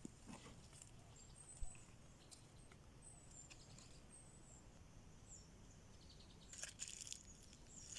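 Faint outdoor quiet with small birds chirping now and then at a high pitch. A single sharp thump comes about a second and a half in, and a short patch of crackling clicks near the end.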